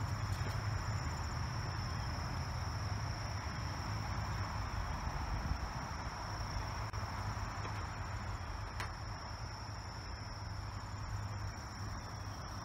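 A steady, high-pitched chorus of insects, such as crickets, over a low steady rumble.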